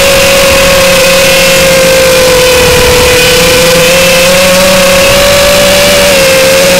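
The four brushless motors and propellers of a Furibee X215 Pro racing quadcopter give a loud, steady whine. The pitch drifts slightly up and down as the throttle changes, with a dip about six seconds in.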